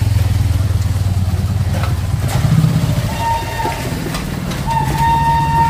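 A motorcycle engine running close by with a steady low hum as the bike passes. A high steady tone sounds twice, from about three seconds in and again near the end.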